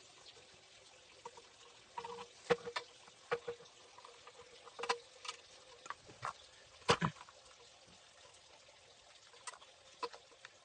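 Scattered light clicks and knocks of scooter parts being handled and fitted together during assembly, the loudest about seven seconds in, over a faint steady hum.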